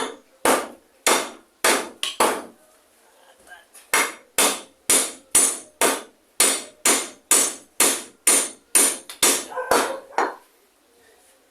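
Hammering: five sharp, briefly ringing blows about half a second apart, a short pause, then a steady run of about fourteen more at roughly two blows a second.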